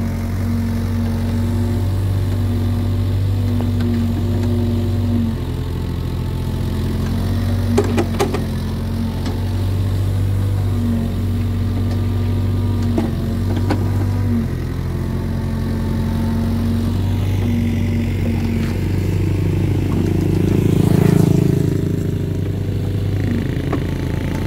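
Hitachi EX75UR excavator's diesel engine running under working load, its note dropping and rising as the hydraulics swing and work the clamshell grab bucket. A few sharp knocks sound as the grab handles the soil.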